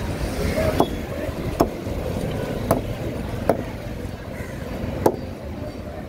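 A heavy curved knife chopping parrotfish into chunks on a wooden block: five sharp strikes, roughly a second apart, over a steady low background rumble.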